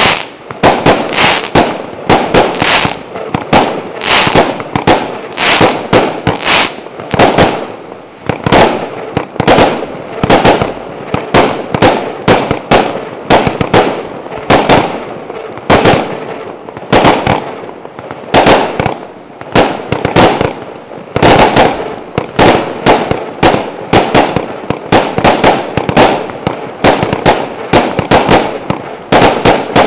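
150-shot, 0.8-inch-calibre firework battery firing in rapid succession, its shots and bursts following one another several times a second without a pause.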